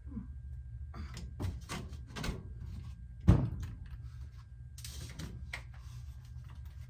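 Handling noises as a dryer vent hose is worked onto the dryer outlet: scattered short rustles and scrapes, with one sharp knock about three seconds in.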